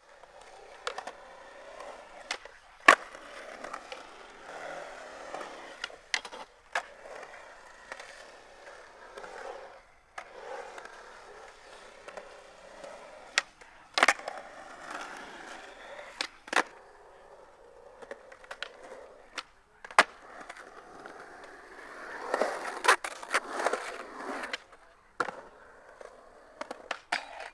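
Skateboard wheels rolling on a concrete skatepark, with sharp clacks from the board popping, landing and hitting the ground at intervals. The loudest clack comes about three seconds in.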